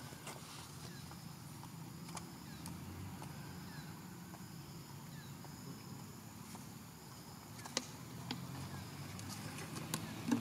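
Quiet outdoor ambience: a steady low hum in the background, with faint short high chirps and a few small ticks, the sharpest about eight seconds in and near the end.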